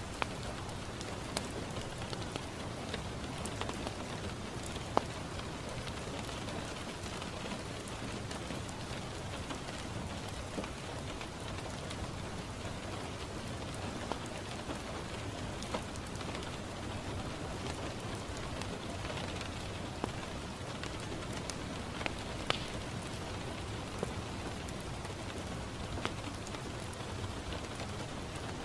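Steady rain falling on a window pane, with scattered sharp pops and ticks from a crackling wood fire, one louder pop about five seconds in.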